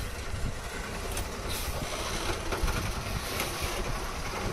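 Tata 14-wheel lorry's diesel engine running steadily with a low rumble, with an even hiss of noise over it.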